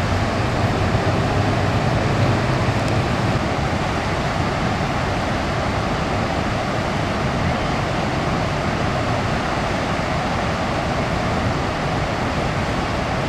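Niagara's Horseshoe Falls: a steady, unbroken rush of water going over the crest and churning in the rapids below, heavy in the low end.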